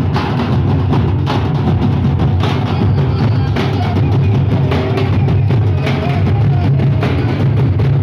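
Large stick-beaten procession drums, nagara kettle drums and two-headed barrel drums, beating a dense, continuous rhythm.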